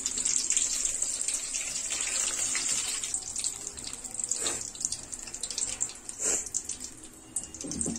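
Batter-coated green chillies deep-frying in hot oil in an aluminium kadai: a steady sizzle with many small crackling pops, louder at first and easing off over the next few seconds.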